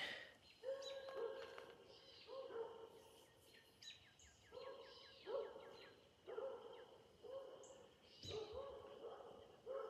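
Dogs barking, faint and repeated about once a second, with birds chirping behind them.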